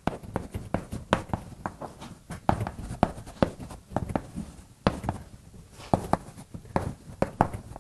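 Writing on a board: an irregular run of short, sharp taps and strokes.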